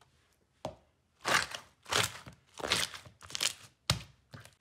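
Hands pressing and squishing a clear, glossy slime, in four noisy squishes about two-thirds of a second apart, with a sharp click about half a second in and another near the end.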